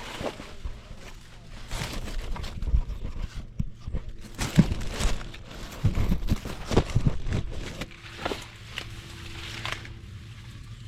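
Irregular rustling and crunching with scattered soft thumps.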